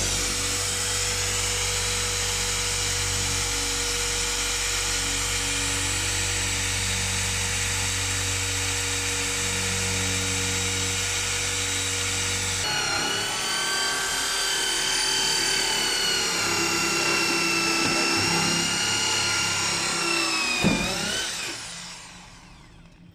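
Corded electric drill running steadily as it bores a hole through plywood shuttering. Its whine changes about halfway through, dips near the end, and then the drill stops.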